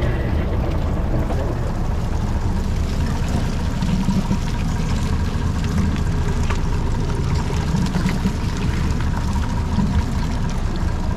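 Fishing boat's diesel engine running with a steady low rumble, with water rushing and pouring around the boat.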